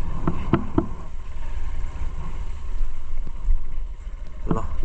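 Dirt bike engine running at low revs as it rolls slowly over a muddy track, with a steady low rumble and wind buffeting on the helmet microphone.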